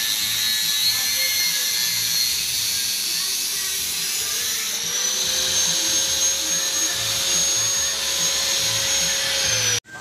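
Electric angle grinder with a cutting disc cutting through a motorcycle's metal footpeg mount: a steady high whine over a harsh grinding hiss. The whine rises in pitch about halfway through, and the sound cuts off suddenly near the end.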